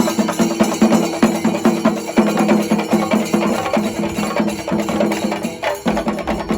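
Percussion music: quick, even drum strokes over a held pitched melody.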